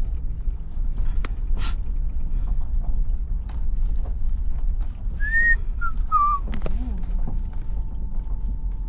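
Steady low rumble of a moving vehicle, heard from someone riding on its back, with scattered knocks and rattles. About five seconds in come a few short whistled notes.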